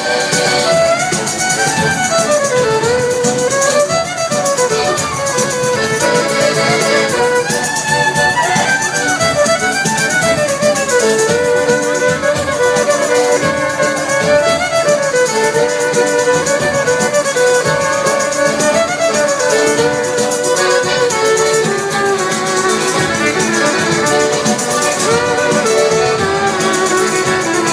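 Pizzica, the Salento folk dance music, played instrumentally: a violin carries a fast, winding melody over a steady tambourine shimmer.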